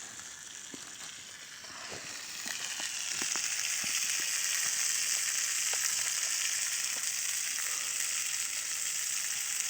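Food frying in oil in a pan over a campfire: a steady sizzle that swells about two seconds in and holds, with small scattered crackles.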